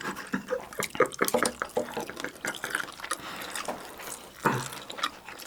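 The last of a bottle of liquor poured into a glass, coming out in short splashes and drips as the nearly empty bottle runs dry.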